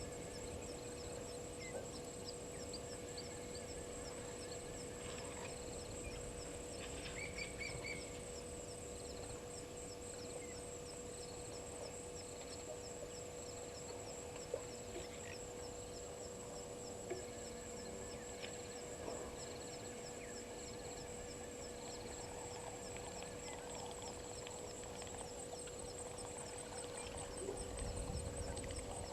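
Outdoor waterhole ambience: high, rapid pulsed trills run steadily throughout, typical of insects, over a steady low hum. A few short bird calls come in, clearest about seven seconds in, and a low rumble rises near the end.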